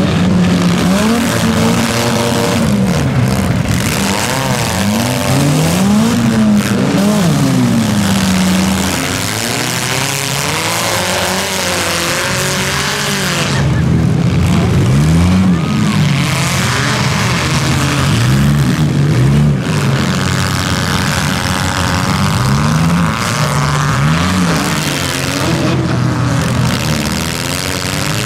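Several front-wheel-drive compact demolition derby cars' engines revving hard, their pitch climbing and dropping over and over as the cars shove against one another in the dirt.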